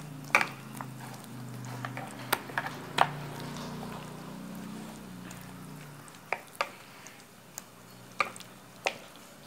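Scattered sharp knocks and clicks of a spoon against a bowl of masala-marinated meat, over a low hum that stops about six seconds in.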